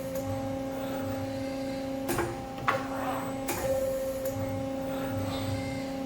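Horn Metric 50MRE hybrid multi-stack CNC tube bender running: a steady machine hum with three sharp knocks near the middle of the stretch.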